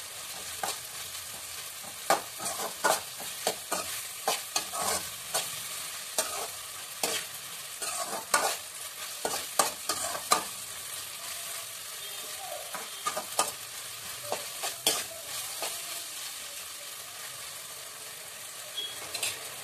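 Onions, tomatoes, green chillies and ginger paste frying in an aluminium kadai: a steady sizzle under the irregular scrape and clink of a metal spatula stirring against the pan. The scrapes come thick and fast for about the first ten seconds, then thin out.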